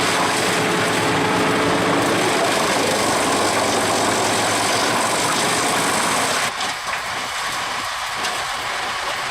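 Bruks 1006 PT wood chipper running under load, a steady engine drone under a loud, dense hiss of logs being chipped by the rotor. About six and a half seconds in the sound drops and turns to a lower, rougher mechanical rattle.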